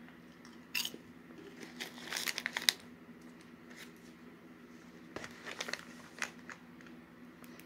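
Clear plastic zip-top snack bag crinkling as it is handled and opened, in short bunches of rustles, the loudest a little under three seconds in.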